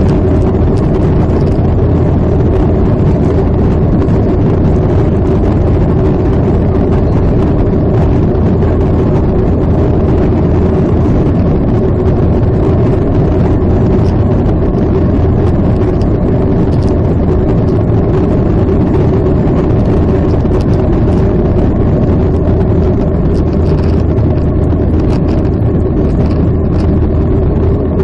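Steady, loud cabin noise of a jet airliner climbing after takeoff: engine drone and rushing air, with a deep hum and a steady mid-pitched tone underneath.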